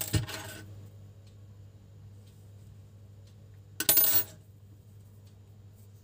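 A small metal object clinks against the tabletop twice, briefly and with a ringing edge: once at the start and once, louder, about four seconds in.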